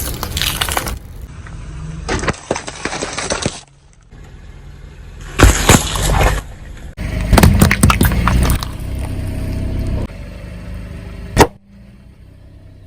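Objects being crushed: several separate bursts of crunching and crackling, each about a second or so long, with a single sharp crack near the end.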